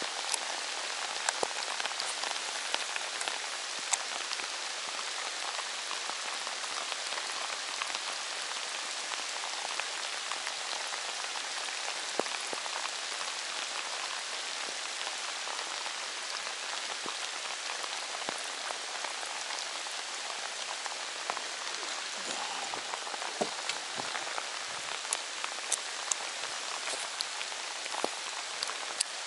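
Steady rain falling: an even hiss with scattered sharper ticks of single drops, which come more often in the last few seconds.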